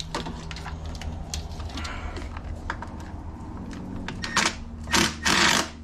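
Milwaukee cordless ratchet on intake manifold bolts: a string of sharp ratcheting clicks, then a few short loud bursts of the ratchet running about four to five and a half seconds in as it works the bolts loose. A steady low hum runs underneath.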